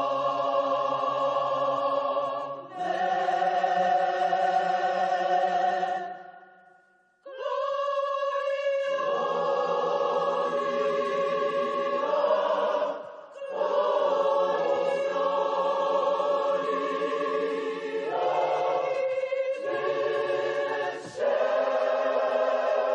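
Large choir singing long held chords, the harmony changing every few seconds. About six seconds in the singing fades out, then comes back strongly a second later.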